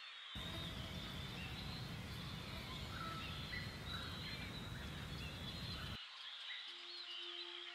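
Woodland ambience of many small birds chirping and calling over insects, with a steady rushing noise underneath until about three-quarters of the way through. Near the end, a low sustained musical tone begins.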